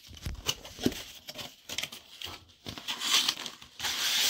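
A cardboard box being opened by hand, with irregular scraping, crinkling and tearing of cardboard and packaging. Near the end it turns into a louder, steady rustling hiss as the packed hot plate is pulled out of the box.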